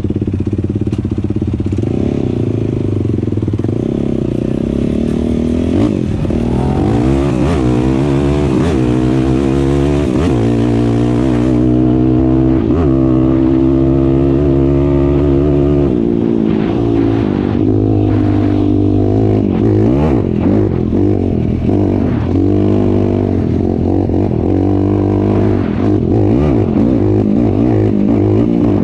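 Side-by-side UTV engine running under load while driving, its revs rising and falling again and again.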